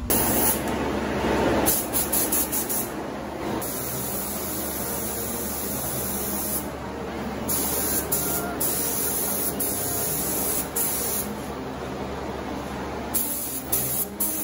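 Compressed-air primer spray gun hissing as it sprays primer onto car body panels. The hiss starts abruptly at the beginning and holds fairly steady, with brief dips in strength.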